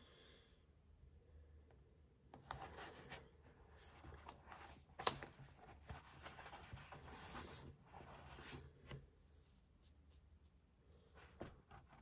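Soft rustling and scratching of paper at a desk for several seconds, with one sharp click about five seconds in and a few light clicks near the end.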